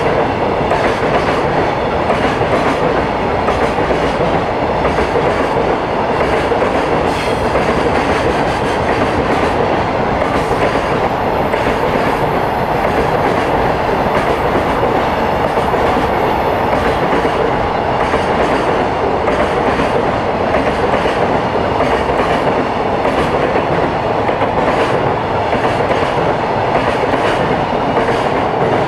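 Container freight train's flat wagons passing at speed close by: a steady, loud rumble of wheels on rail, with wheels clacking over rail joints.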